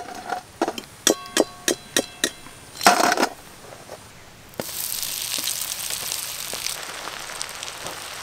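A steel slotted spoon clinks and clanks several times against a metal wok and steel plates as fried pakoras are lifted out. About halfway, battered prawns go into the hot oil and it breaks into a sudden, steady sizzle.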